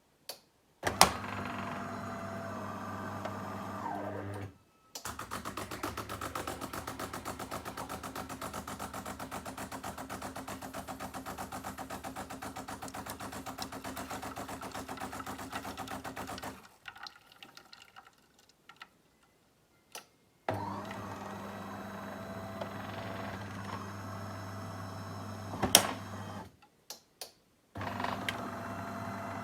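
DeLonghi bean-to-cup coffee machine running its cycle: the brew-unit gear motor runs in short spells, starting with a click, and a long stretch of rapid, even pulsing comes in between. The brew unit moves without the rattle and grinding it made before, its lift gear nut freshly replaced.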